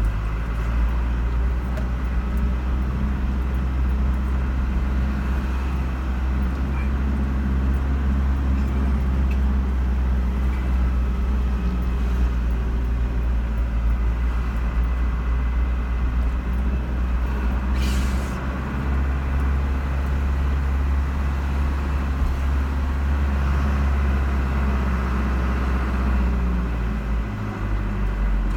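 Car driving at a steady speed, with a constant low drone of engine and tyre noise. There is a short hiss about eighteen seconds in, and the engine note changes near the end.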